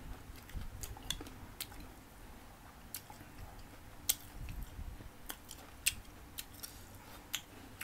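Crisp green mango being chewed, with irregular sharp crunches and clicks.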